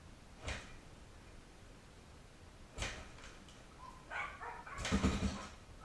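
A Kawasaki KLX700R dirt bike being kick-started without catching: two separate thumps of the kickstarter, then a louder, busier clatter of knocks about four to five seconds in.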